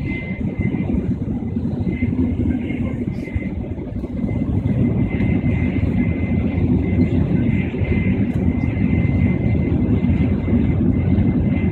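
Steady rumble and rush of a Tokaido Shinkansen train running at speed, heard inside the passenger cabin, with a thin steady high tone above it.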